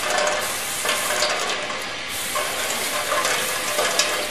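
Water poured onto a hot threaded steel rod, sizzling and hissing into steam with scattered crackles, along with the splash of the stream running off the rod.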